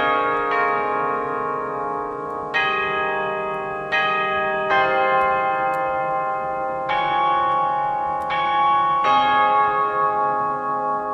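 Aeolian-Skinner virtual pipe organ playing a Christmas hymn: sustained chords, a new chord starting every one to two seconds.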